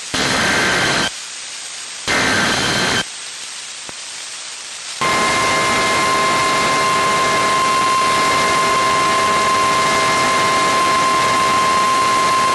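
Emergency Alert System data header: two bursts, each about a second long, of harsh screeching digital tones over radio hiss. About five seconds in, the steady single-pitch NOAA Weather Radio warning alarm tone starts and holds, announcing a new alert.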